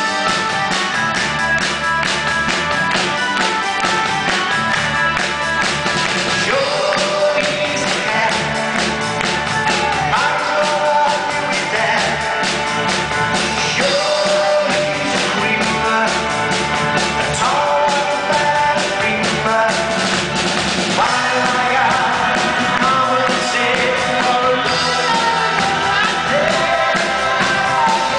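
Live pop-rock band playing with drums, guitars, bass and keyboards, a man singing lead over it.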